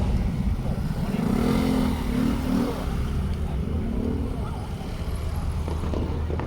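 A steady low rumble with people's voices over it, about one to three seconds in and again about four seconds in.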